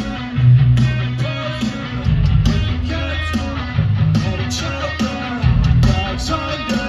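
Live rock music over a festival PA: electric guitar playing over heavy bass and drums.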